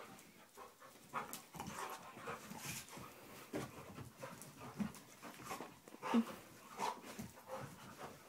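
Two German Shorthaired Pointers play-fighting, panting and scuffling in short, irregular bursts, with a few brief low vocal sounds.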